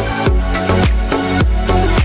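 Background music with a steady dance beat, bass notes and regular drum hits.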